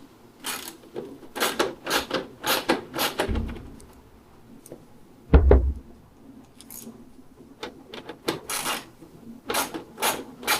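Hand work on a motorcycle fairing's loose bolts: a string of short metallic clicks and clinks from bolts and tools being handled, with one heavier thump about five seconds in.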